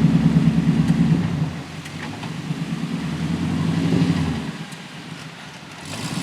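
4x4 truck engine working at low speed while manoeuvring on a trail, pulling hard about a second and a half, easing off, building again to a peak about four seconds in, then dropping back near the end.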